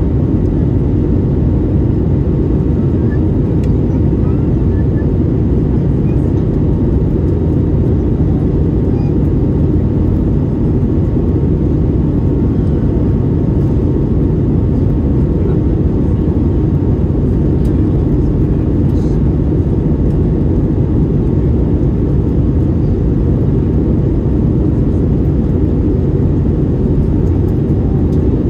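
Cabin noise inside an Airbus A321neo with its Pratt & Whitney PW1100G geared turbofans running: a steady, deep drone of engines and airflow, with a faint steady whine over it and no change in level.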